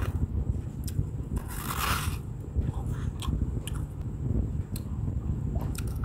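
Close-miked chewing of freezer frost: a steady low crunching, with a few sharp clicks and a louder crisp crunch about two seconds in.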